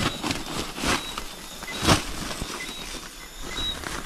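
Rustling and crackling as a white bag and the leaves around it are handled and shifted, with several sharp scrapes or knocks, the loudest about two seconds in. A few faint short high chirps sound in the background.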